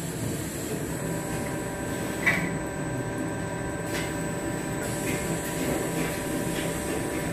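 Plastic injection moulding machines running: a steady mechanical hum with several steady tones, and one sharp clack about two seconds in.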